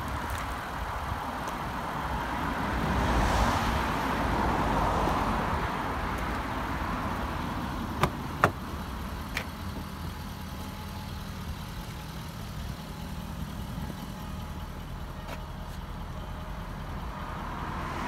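Road traffic passing, swelling and fading over the first few seconds, then two sharp clicks about eight seconds in as the Jaguar XK convertible's driver door is unlatched and opened, over a steady low background hum.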